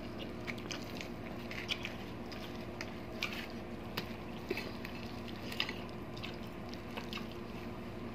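Eating sounds: chewing with scattered soft clicks and smacks as fingers pick apart fried milkfish (bangus), over a faint steady hum.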